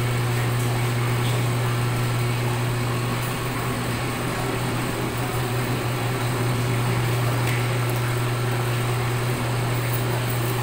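Electric motor of a heavy-duty paper cutter running with a steady low hum while the machine runs its automatic cut.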